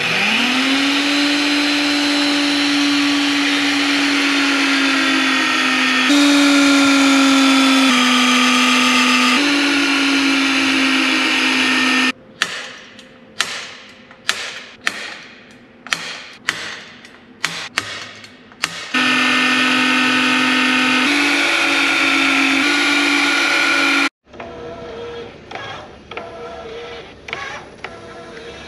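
Vevor magnetic drill press drilling holes in thick steel plate: the motor spins up into a steady whine that shifts in pitch a few times as the bit cuts. Midway it breaks into a quick run of about a dozen short, sharp sounds, then the drill runs steadily again and cuts off suddenly, leaving quieter light clicking.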